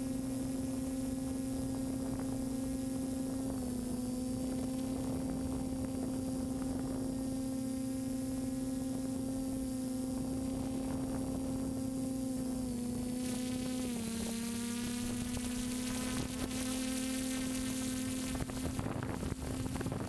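Multirotor drone's motors and propellers heard from its onboard camera: a steady buzzing whine. Its pitch steps down slightly a few seconds in and dips briefly about fourteen seconds in, with more rushing air noise in the second half.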